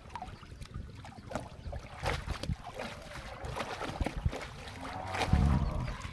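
Shallow pond water splashing and sloshing as a cast net is hauled up out of it, with irregular small splashes and drips and a louder bump near the end.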